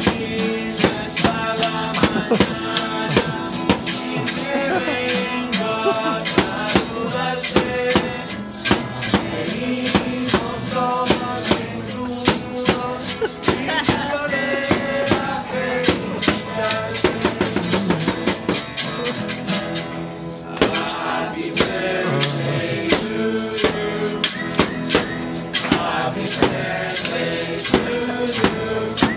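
Live acoustic guitar strummed in a fast, even rhythm, with a man singing over it; the playing drops out briefly about two-thirds of the way through.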